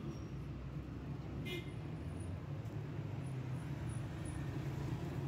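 City street traffic: a steady engine rumble from passing vehicles, with a short sharp sound about a second and a half in.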